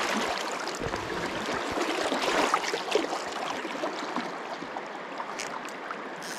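Riffled river current rushing and babbling steadily right around the microphone, with small scattered splashes and ticks of water.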